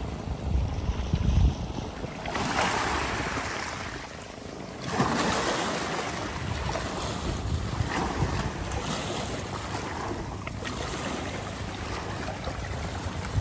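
Small sea waves washing in around the shore and driftwood in repeated swells, each rising and falling over a second or two. Wind buffets the microphone with a low rumble in the first second or so.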